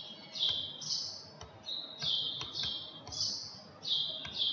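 A small bird chirping over and over, short high calls that drop slightly in pitch, about one or two a second, with a few faint clicks in between.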